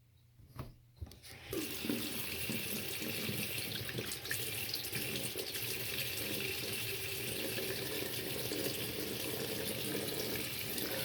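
Kitchen faucet running into a sink in a steady stream, turned on about a second and a half in after a few small knocks.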